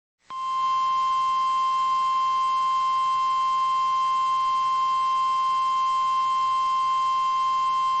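NOAA Weather Radio 1050 Hz warning alarm tone: one loud, steady pitch that starts just after the beginning and holds unchanged over a faint radio hiss. It announces that a warning, here a severe thunderstorm warning, is about to be broadcast.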